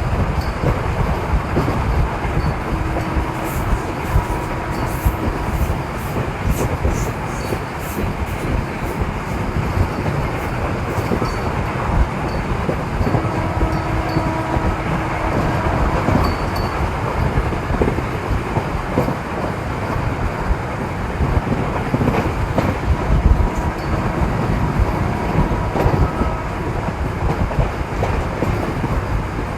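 Indian Railways MEMU electric multiple-unit train running: a steady rumble of wheels on rail, with faint steady tones coming and going and a run of faint high ticks a few seconds in.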